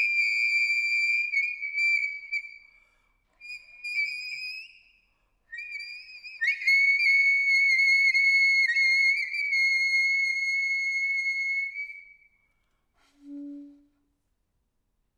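Solo saxophone playing very high sustained notes in three phrases, the last held for about six seconds with small wavers in pitch. A short, soft low note follows, then the playing stops.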